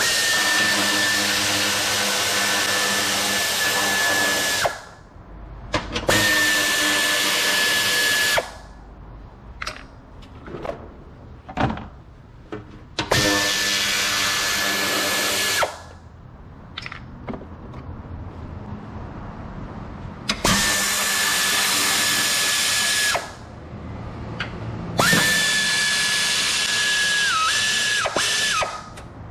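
Power drill running in five bursts of two to four seconds, each with a steady high motor whine; the whine dips in pitch twice near the end of the last burst. Short clicks and clinks of tools between the bursts.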